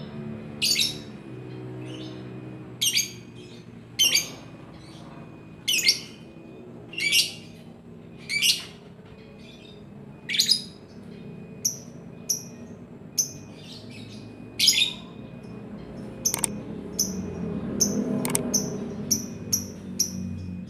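Caged lovebird calling in loud, sharp chirps, roughly one every second or so. From about halfway it switches to a quicker run of shorter, higher chirps, about two a second.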